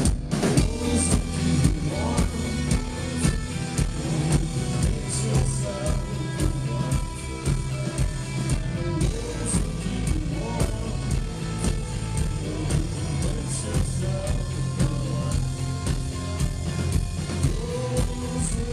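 Live rock band playing, heard from the audience: a steady drum-kit beat, electric guitar and a male lead vocal.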